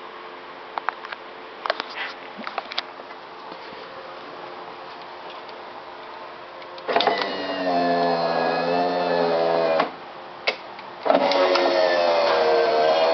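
A Corsa's electric power window motor runs the glass one way for about three seconds and stops with a click, then starts again the other way. It is a whirring whine whose pitch sags slightly during each run. The motor runs smoothly after a repair of its opening and closing fault. A few faint clicks come before the first run.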